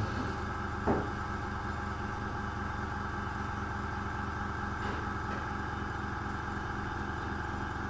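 Small airbrush compressor running with a steady hum, with a single light knock about a second in.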